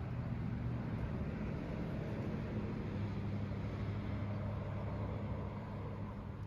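A boat motor running steadily with a low, even hum, its pitch shifting slightly about three seconds in.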